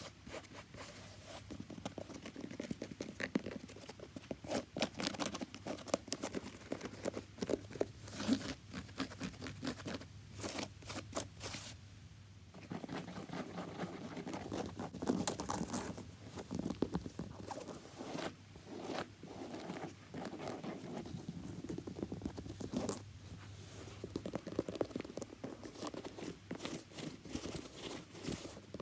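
Tapping and scratching on a shoe: a dense run of quick taps and scrapes, with a short lull about twelve seconds in.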